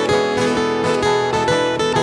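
Two acoustic guitars strummed in a steady rhythm, about four strokes a second, over sustained electric keyboard chords: a live acoustic band playing an instrumental passage.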